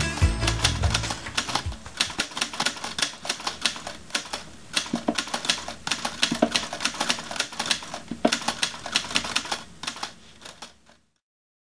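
Typing: rapid, irregular key clicks, several a second, that stop abruptly near the end. Music fades out under the first clicks.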